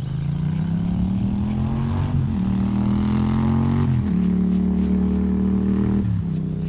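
Electric motor and drivetrain of an RC buggy whining at speed; the pitch rises over the first two seconds, then drops suddenly three times, about every two seconds.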